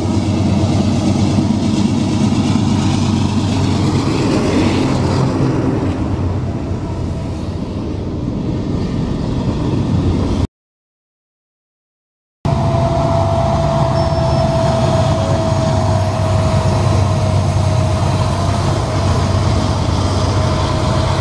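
A train passing close by, a steady loud rumbling noise, which breaks off about ten seconds in; after a two-second gap comes steady road and engine noise from inside a moving car, with a faint steady whine.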